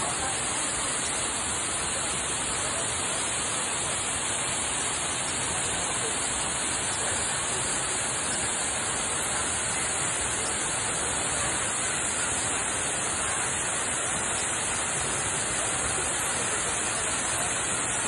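Waterfall: a steady, unbroken rush of water falling onto rocks.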